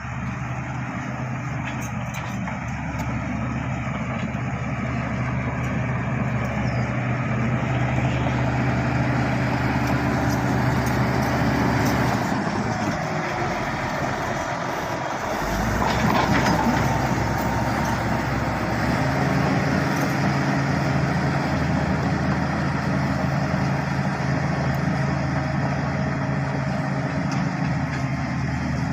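Bulldozer's diesel engine running with a steady low note. About twelve seconds in, the note gives way for several seconds to a deeper, rougher sound, loudest around sixteen seconds in, then the steady note returns.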